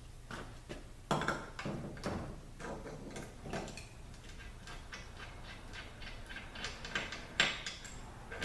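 Irregular metallic clicks and knocks of hand tools and parts as a staked nut is worked off a transaxle's differential, with the sharpest knocks about a second in and near the end.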